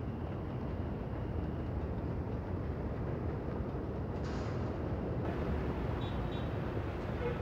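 Steady low rumble of vehicles in night city traffic, with a brief hiss about four seconds in.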